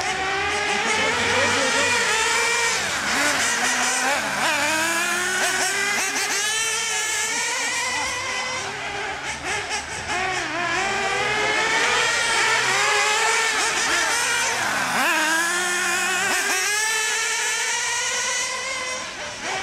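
Several nitro-powered 1/10 and 1/8 scale RC cars racing. Their small glow engines run at a high pitch, revving up and falling back over and over as they accelerate and brake around the course, with several engine notes overlapping.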